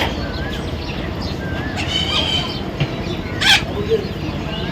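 Parrot calling: a few short chirps and squawks, then a loud, harsh screech about three and a half seconds in.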